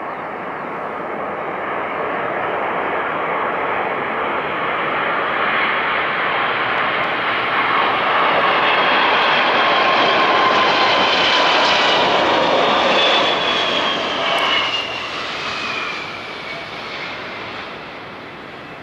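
Boeing 747-400 jet engines, Rolls-Royce RB211 turbofans, on landing approach. The jet noise builds as the plane comes in low and peaks about two-thirds of the way through, with a high whine that falls in pitch as it passes. The noise then drops away sharply and goes on more quietly.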